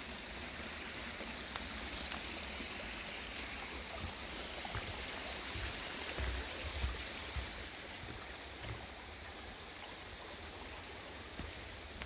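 A small forest creek running, a steady rush of water that eases a little after about eight seconds, with a few low thumps of footsteps on the dirt trail.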